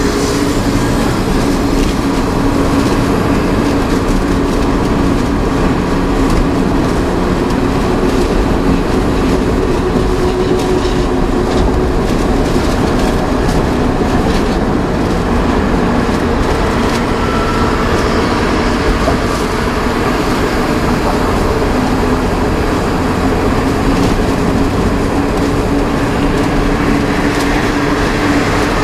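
Inside the cab of a VW Worker 15-180 4x4 truck cruising at highway speed: the diesel engine runs at a steady pitch under a constant rumble of tyre and road noise.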